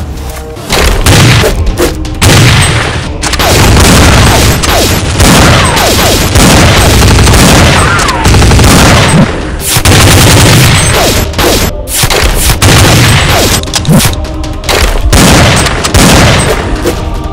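Loud gunfire and explosion sound effects: continuous volleys of shots with a heavy boom every second or two.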